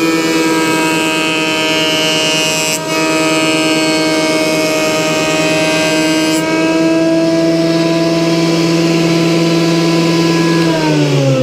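Delta benchtop jointer running with a steady motor whine while its knives cut a wenge plane body, a hiss that breaks off briefly near three seconds and ends about six seconds in. Near the end the jointer is switched off and its pitch falls as it spins down.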